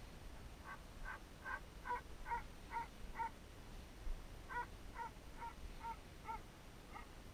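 A crow cawing in two runs of short, evenly spaced calls, about seven and then about six, with a pause of a second or so between.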